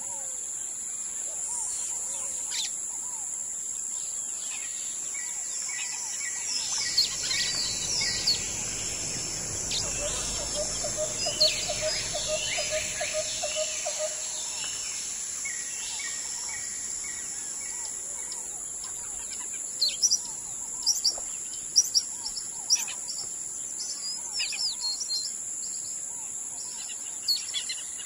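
Forest birds calling and chirping over a steady high drone of insects. Partway through there is a fast run of low repeated notes and a low rumble.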